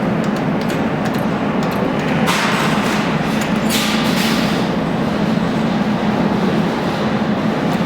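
Steady arcade din, a loud, even mix of machine and room noise with a constant low hum. Two short hissing bursts come about two and four seconds in.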